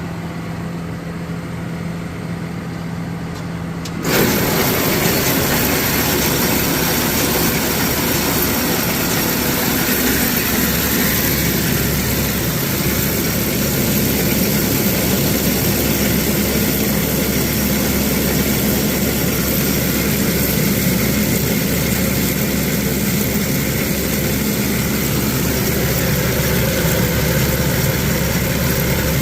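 Engine-driven machinery running: a steady hum, then about four seconds in a much louder machine noise cuts in abruptly and runs steadily.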